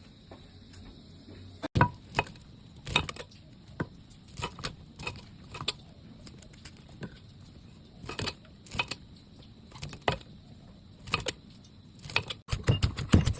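Irregular clinks and knocks of utensils against dishes or kitchenware, spaced about half a second to a second apart, turning into quicker, louder clatter near the end.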